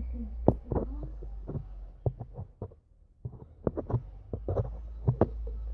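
Slime squeezed and worked in the hands, giving an irregular run of short sticky clicks and small pops over a low steady hum.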